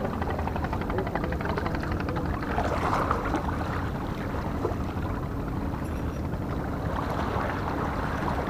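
Steady rushing noise of wind and sea water on an action-camera microphone, with a low rumble underneath.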